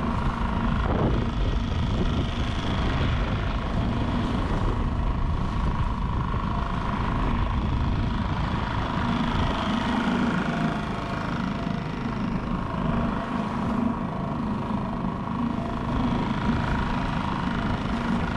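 Small Mercury outboard motor running steadily, driving an inflatable dinghy under way, with wind and water noise.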